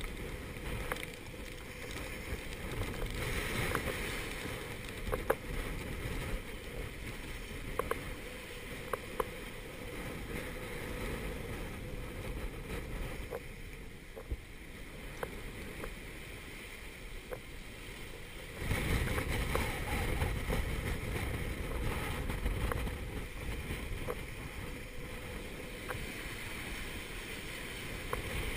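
Gale wind and rushing, breaking seas around a small sailboat running downwind, with occasional sharp knocks. The rushing noise jumps suddenly louder about two-thirds of the way in and stays up.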